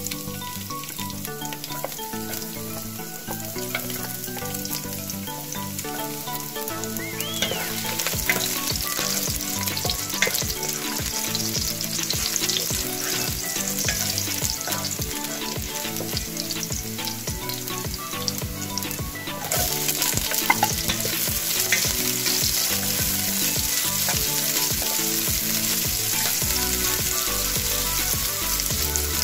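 Chopped garlic and then sliced onion sizzling in hot cooking oil in a nonstick pot, stirred with a utensil that scrapes the pan now and then. The sizzle grows louder about eight seconds in and again about twenty seconds in. Soft background music plays underneath.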